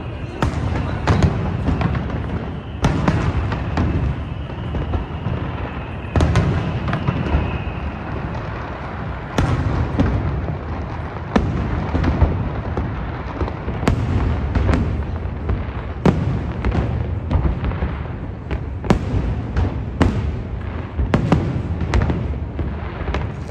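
Aerial fireworks bursting in a steady run, a sharp boom about every second or two over a continuous low rumble.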